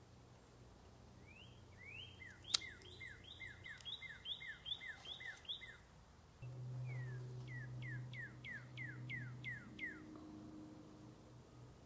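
A songbird singing two quick runs of repeated whistled notes: first about a dozen notes that rise and fall, then about nine downslurred notes. A single sharp click comes about two and a half seconds in, and a low steady hum joins about halfway through.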